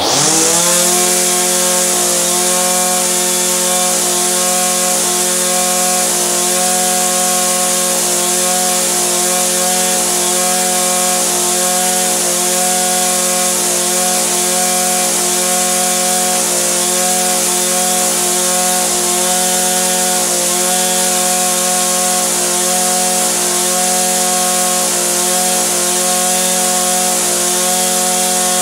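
Echo SRM-2620 string trimmer's small two-stroke engine revving up sharply right at the start, then held at a steady high speed, running evenly without faltering.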